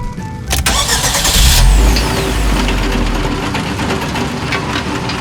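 Excavator engine sound effect: a couple of clicks and a burst of hiss, then the engine starting with a loud low rumble about two seconds in and settling into a steady run.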